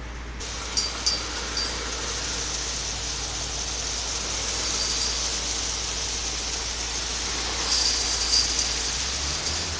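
Concrete mixer running: a steady low engine hum under an even rushing churn, with a few short clatters near the start and again about eight seconds in.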